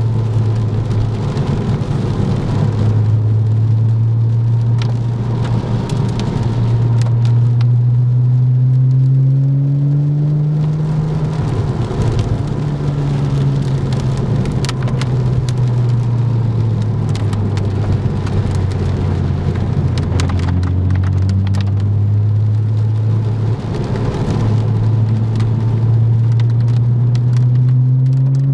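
Car engine heard from inside the cabin, its note slowly rising and falling several times as the car speeds up and eases off, with rain pattering on the car.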